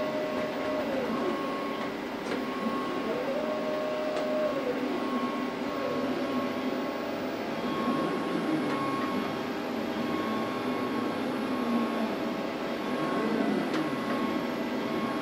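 Pan and tilt stepper motors of a copy of a Martin 300 moving-head wash light whining as the head swings: each move is a pitch that rises, holds and falls, repeating every few seconds. Under it runs a steady hum.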